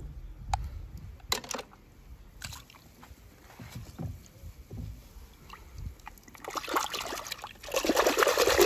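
Foamy water in a plastic tub being stirred by a hand dunking a small die-cast toy car: scattered drips and small splashes, then, near the end, loud continuous sloshing and splashing as the car is scrubbed hard in the water.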